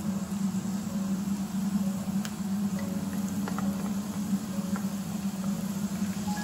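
Diced onion beginning to fry gently in olive oil in a nonstick pan, with two or three light clicks as the glass bowl taps the pan while the last pieces are scraped in. Faint background music runs underneath.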